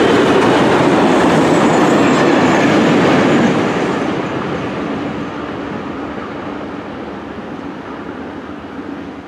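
EFE D-16005 diesel locomotive and its two flat wagons rolling past over the rails, a loud wheel-on-rail rumble. About three and a half seconds in, it begins to fade steadily as the train moves away.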